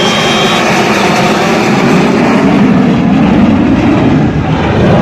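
Loud, steady jet noise from a Rafale fighter's twin Safran M88 turbofan engines as it flies low overhead.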